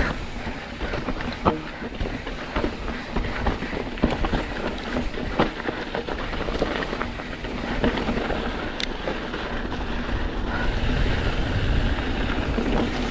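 Mountain bike riding fast over a rocky trail: a steady rattle of tyres on rock and gravel, broken by many sharp knocks and clacks from the bike. Wind rumbles on the microphone more strongly near the end.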